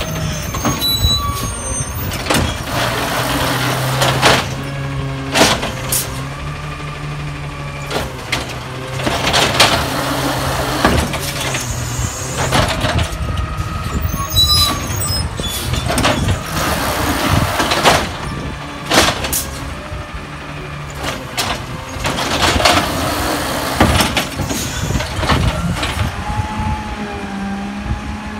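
Peterbilt 320 side-loading garbage truck with a compressed-natural-gas engine running steadily, with repeated sharp air hisses and bangs as it works the carts along the curb. Near the end the engine revs up, rising in pitch.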